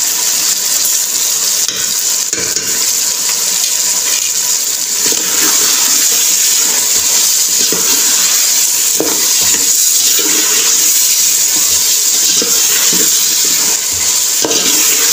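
Potatoes and green peas frying in oil in an aluminium pot with a steady sizzle, while a metal spoon stirs them, scraping and knocking against the pot at irregular intervals.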